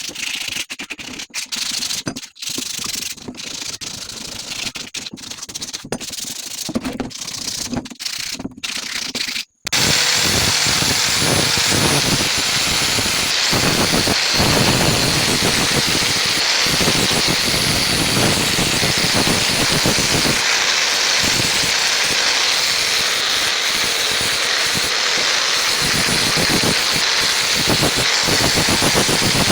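A string of short, abruptly cut workshop noises, then from about ten seconds in a steady loud hissing, scraping noise.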